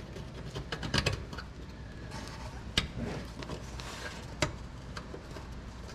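A few light metallic clicks and clinks from a steel clip-in nut being handled and pushed into a slot in a car's frame rail: a small cluster about a second in, then single sharp clicks twice more.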